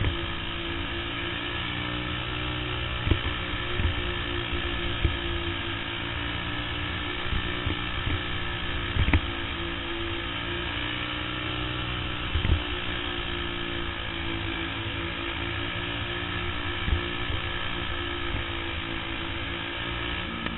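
Caged champ kart's engine running hard at a fairly steady speed, heard from the onboard camera, with a few sharp knocks scattered through.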